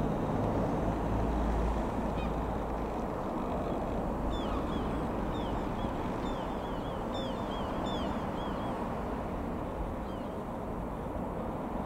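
Avid Flyer light aircraft's engine droning as it flies overhead, mixed with wind rushing on the microphone, strongest in the first two seconds. A small bird chirps in short falling notes from about four to nine seconds in.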